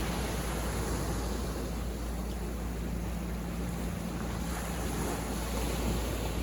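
Sea surf washing onto a beach, a steady, even rush of waves with no single crash standing out.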